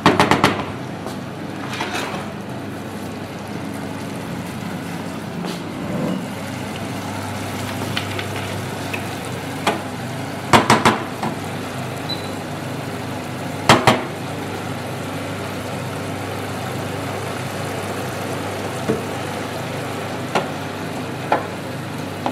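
Wooden spoon stirring stewing cabbage in a stainless steel pot over a steady sizzle, with several sharp knocks of the spoon on the pot, a cluster in the middle.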